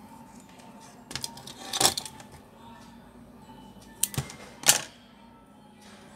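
Black PVC electrical tape being pulled off the roll in two crackly, sticky peels, about a second in and again about four seconds in.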